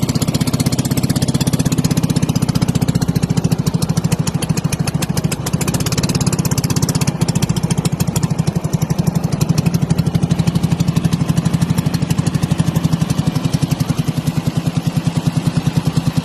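A small engine running steadily with an even, rapid throb.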